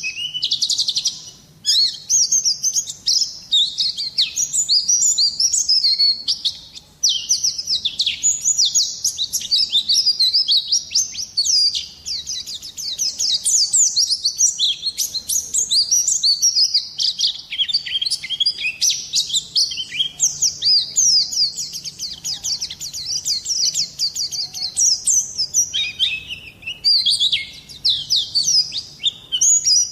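Small songbird singing a long, fast, high-pitched run of chirps and trills, broken only by a couple of short pauses.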